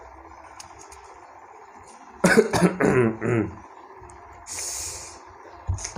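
A man coughing and clearing his throat, a run of about four coughs starting about two seconds in, followed a second later by a short breathy hiss.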